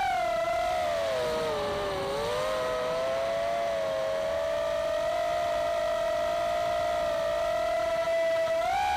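Electric motors and propellers of a small FPV quadcopter whining, heard from its onboard camera. The pitch dips about one to two seconds in, holds steady, then rises again near the end as the throttle changes.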